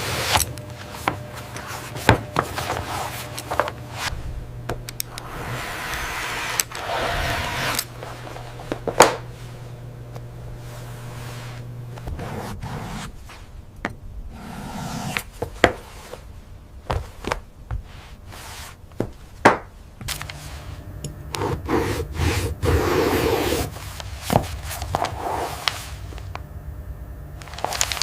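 Crocodile leather panels being handled and cut on a work table: rubbing and scraping with scattered sharp clicks and taps, over a low steady hum.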